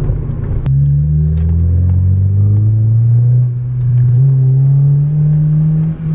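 Mazda MX-5 1.8-litre engine breathing through an open cold-air induction kit, accelerating: the engine note climbs, drops back with a gear change about three and a half seconds in, climbs again, and dips briefly near the end. A single sharp click sounds just before the first climb.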